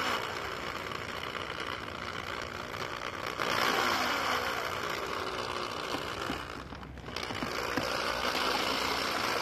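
Corded electric hand drill running with a cross-shaped mixing paddle, churning white waterproofing coating in a plastic bucket. The motor speed rises and falls, easing off briefly about seven seconds in before picking up again.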